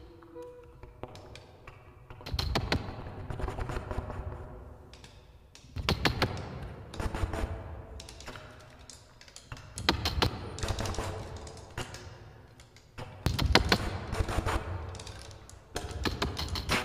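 Amplified clear acrylic zither being tapped and rattled on its strings in repeated flurries of rapid clicks with low thuds, each flurry a second or two long and coming every three to four seconds. Faint held tones sound underneath.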